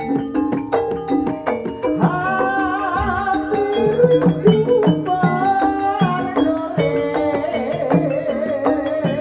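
Live jaranan gamelan music: metallophone strikes and hand drums playing a busy, even rhythm, with a held, wavering melody line coming in about two seconds in.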